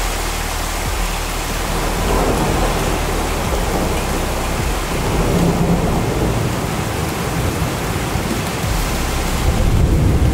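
Heavy rain pouring steadily, with a deeper rumble swelling about halfway through and again near the end.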